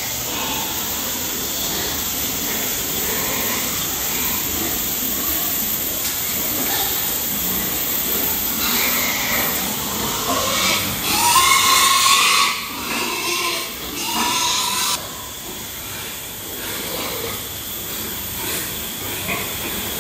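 Pigs in a pen grunting and squealing over a steady hiss, with a louder, rising squeal about halfway through.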